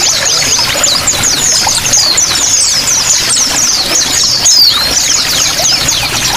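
Small songbirds chirping and trilling in a dense run of quick, high, falling notes over the steady splash of running water.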